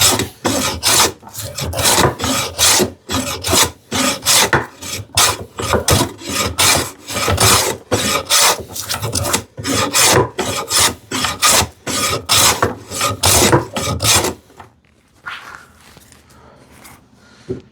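Wooden jack plane being pushed in quick, short strokes across wood, about two strokes a second, each a rasping hiss of the iron shaving the surface. The strokes stop about fourteen seconds in, leaving only faint handling sounds.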